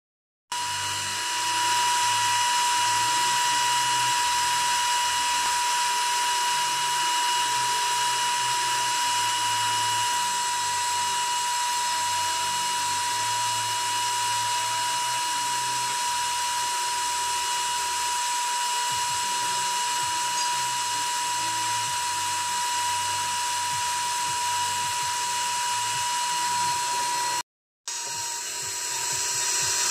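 High-speed spindle of a JewelPro jewellery CNC machine running steadily as its fine bit engraves a diamond-cut finish into a metal pendant blank: a strong high-pitched whine over a hiss. The sound cuts out for a moment near the end, then comes back.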